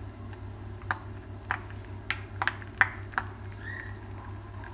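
Hot foaming butter crackling in a frying pan as tomato paste is added, with irregular sharp pops a few times a second over a steady low hum.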